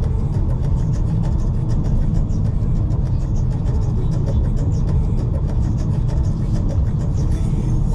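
Steady low rumble inside the MG Windsor EV's cabin, the car's running noise with no distinct events.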